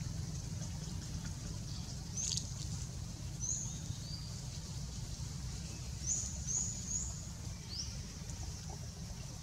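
Outdoor ambience: a steady low rumble with about seven short, high animal chirps scattered through it.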